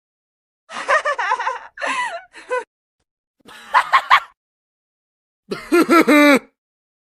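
Three short comic vocal sound effects in a row, each cut off cleanly with silence between: wavering, pitched voice sounds of the gasping, snickering kind. The first is about two seconds long in three parts; the other two are about a second each.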